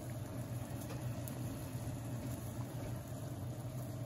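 Pan of venison steak simmering in tomato sauce on a gas stove: a soft steady hiss with a steady low hum underneath and a few faint ticks.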